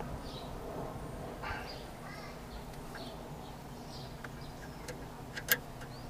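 Faint, scattered bird chirps over a low steady hum, with a few sharp clicks about five seconds in, in the way of a wiring connector being handled at the back of a car's head unit.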